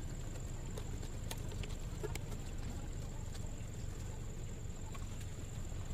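Steady outdoor background by the sea: a low rumble, a constant high thin whine, and scattered light clicks and taps.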